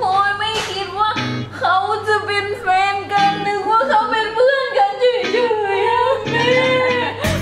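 Background song: a voice singing a melody over guitar accompaniment.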